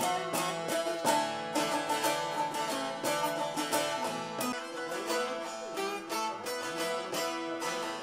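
A bağlama (long-necked Turkish saz) being strummed in a fast, even run of plucked strokes.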